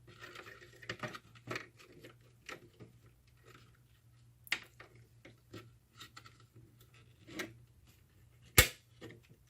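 Plastic keyboard parts being handled and fitted together: scattered light clicks and taps, with a sharper knock about halfway and the loudest knock near the end.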